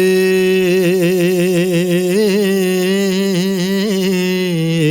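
A male singer holds one long note on the word "hoye" in a Punjabi song, wavering in a steady vibrato with small ornamental turns. The voice is recorded through a Lauten Audio LA-320 tube condenser microphone with studio vocal processing.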